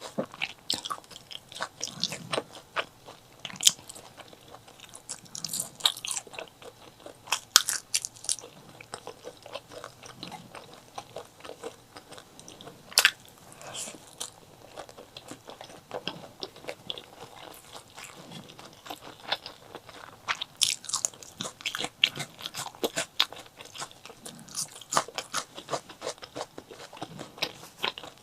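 Close-miked eating of chili with white rice: crunchy bites and chewing, with irregular sharp wet mouth clicks and a louder click about 13 seconds in.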